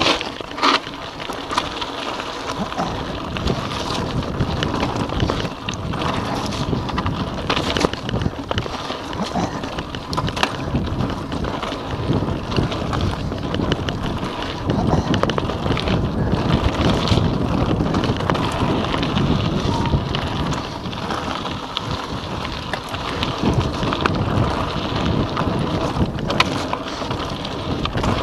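Wind buffeting the microphone and tyres rolling over a rough, wet gravel trail on a Giant Anthem 2 27.5 full-suspension cross-country mountain bike, with frequent knocks and rattles from the bike over rocks and roots.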